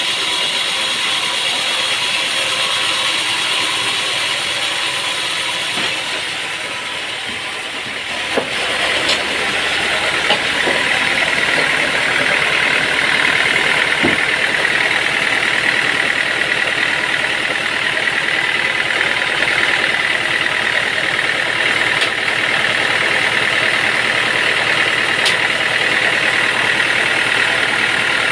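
An engine-driven machine running steadily, with a high whine that sets in about nine seconds in and holds, and a few sharp knocks.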